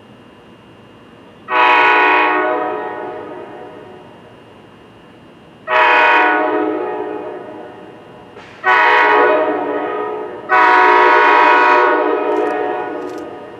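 Horn of an NJ Transit ALP-46A electric locomotive sounding four blasts as it approaches: two long, a shorter one, then a long one, the pattern of the grade-crossing signal. Each blast fades away slowly.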